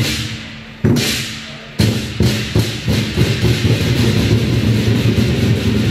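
Lion dance drum and cymbals: three heavy crashes about a second apart, each ringing on, then a quicker steady beat that carries on to the end.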